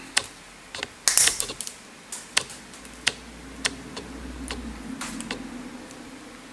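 Small side cutters clicking and snapping against the bent metal clamps of a tiny switch's metal case as it is pried open: a string of sharp, irregular clicks, a few louder snaps about a second in.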